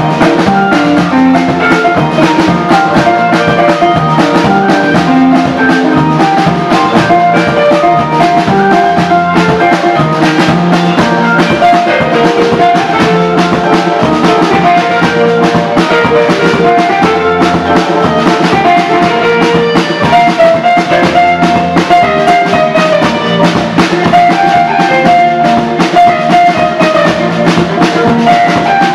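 Loud music with a drum kit keeping a steady beat under quick melodic lines.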